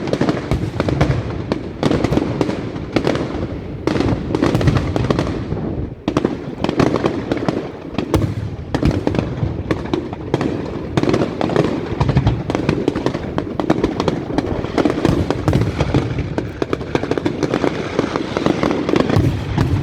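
Aerial fireworks display: a dense, unbroken barrage of shell bursts with booms and rapid crackling.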